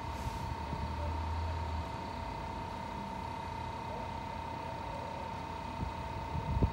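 Stadler Dosto double-deck electric train standing at the platform, its on-board equipment humming steadily with a constant high whine over a low rumble; the low hum is louder for the first two seconds. Near the end a few low thumps of wind on the microphone.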